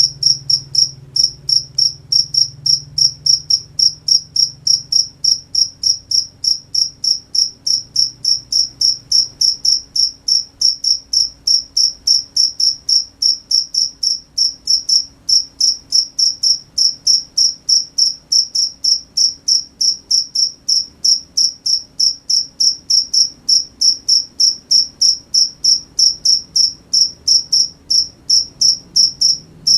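A cricket chirping steadily: a regular, high-pitched pulse repeating about three times a second.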